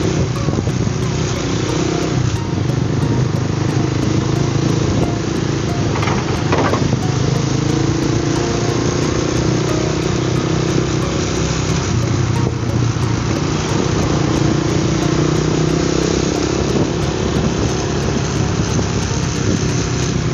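Motorcycle engine running at riding speed in slow traffic, its note rising and falling a little with the throttle, over a steady rush of road and wind noise.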